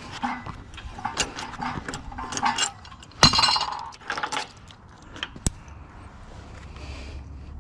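Metal clinking and clanking from hand tools working brass fittings off a water heater, with a loud ringing clank about three seconds in and a sharp click a couple of seconds later.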